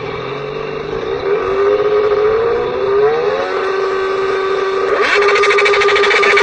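Small engine of a motorized bicycle running with its revs wandering up and down, then holding steady. About five seconds in it picks up with a louder, fast rattling buzz.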